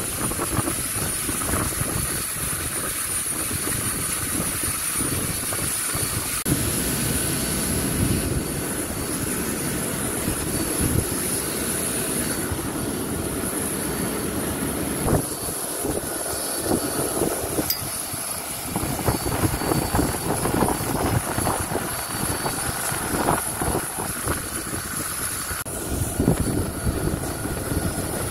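Steady high-pitched whine of aircraft turbine noise on an airport apron, with an uneven low rumble that comes and goes.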